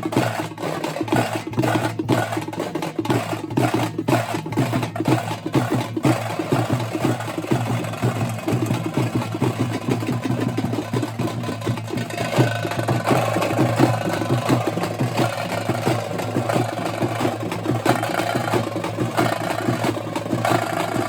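Tamate frame drums beaten with sticks in a folk rhythm: clear, evenly spaced strokes at first, then a quicker, denser beat from about six seconds in.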